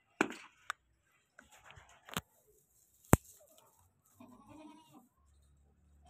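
A goat bleats once, briefly, about four seconds in. Before it come several sharp clicks and knocks, the loudest about three seconds in.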